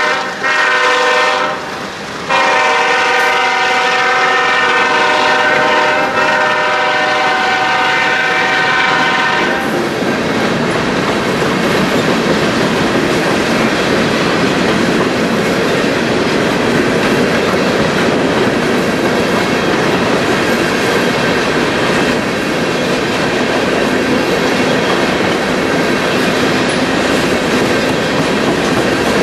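Diesel locomotive air horn blowing a long chord, briefly broken about two seconds in and cutting off about nine and a half seconds in. Then the steady rumble and clickety-clack of the coal train's hopper cars rolling past.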